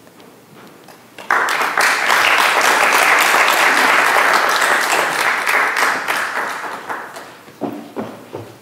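Audience applauding. The applause starts suddenly a little over a second in and fades away over the last few seconds.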